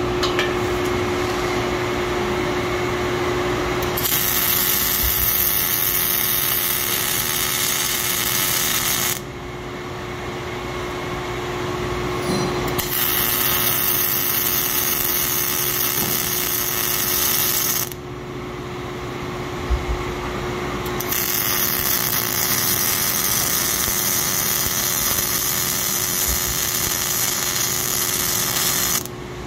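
Robotic MIG welding: the robot-held wire-fed torch lays three welds in turn, each a steady arc hiss lasting about five to eight seconds. In the short pauses between welds, and in the first few seconds, only a steady hum remains.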